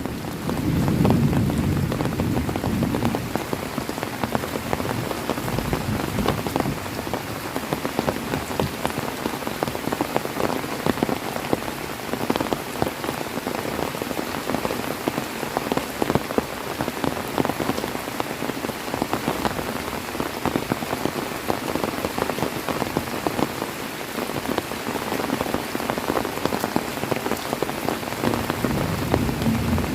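Heavy rain falling steadily, a dense patter of drops on surfaces. A low rumble of thunder dies away in the first few seconds, and another low rumble starts near the end.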